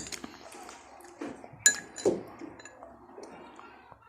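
Spoons clinking against dessert bowls, a few scattered light clinks with a brief ring; the loudest two come about a second and a half and two seconds in.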